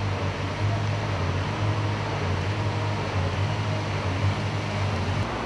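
A steady low mechanical hum under a wash of noise, changing slightly about five seconds in.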